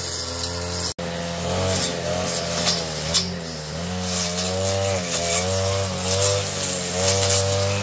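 Small engine of a handheld power tool running, its pitch wavering up and down as it is throttled through the work, with a brief dropout about a second in.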